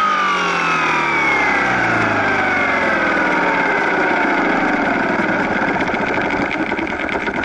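RC helicopter's motor and rotor spinning down, a whine falling steadily in pitch, turning into a rapid flutter near the end as the rotor slows, with the helicopter lying in the grass.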